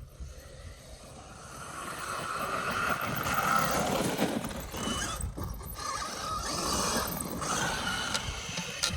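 Traxxas Maxx RC monster truck driving: its electric motor whines and its tyres run over the ground, the sound growing over the first few seconds and then rising and falling as the truck speeds up and lets off, with brief drops about five and seven seconds in.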